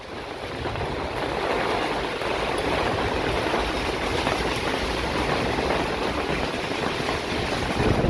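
Hail and rain falling together in a steady, dense patter of countless small impacts.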